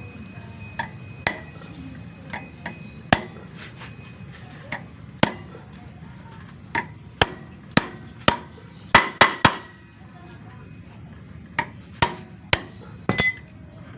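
Hammer blows on a flywheel puller fitted to a Honda Vario 150's flywheel, knocking the flywheel loose from the crankshaft. The metallic strikes are irregular, mostly single or in pairs, with a quick run of four about nine seconds in and several more near the end.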